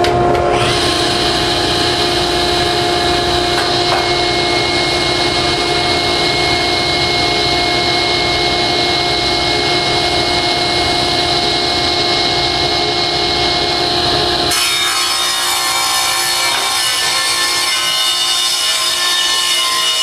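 Delta table saw switched on about half a second in, its motor and blade running over the steady hum of a dust collector, then ripping a rough-sawn one-inch board. The sound changes suddenly about three quarters of the way through.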